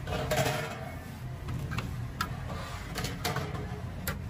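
Knife blade scraping and clicking against a metal skewer and steel tray while slicing roasted chicken sajji. There are several sharp clicks and short scrapes over a steady low rumble.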